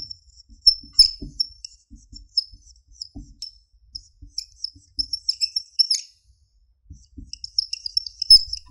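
Whiteboard marker squeaking on the board as characters are written, a quick run of short, high-pitched squeaks, one per stroke, with faint knocks of the tip. The squeaks stop for a moment about six seconds in, then start again.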